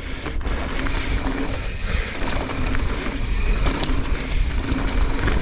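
Mountain bike riding fast down a dirt jump line: tyres rumbling over the dirt and wind buffeting the microphone, with a steady buzzing hum that comes and goes.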